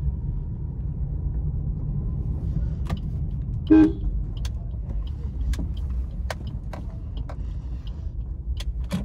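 Steady low engine and road rumble heard from inside a Maruti Suzuki car moving slowly, with a short car-horn beep nearly four seconds in, the loudest sound. Scattered sharp clicks and light knocks follow through the second half.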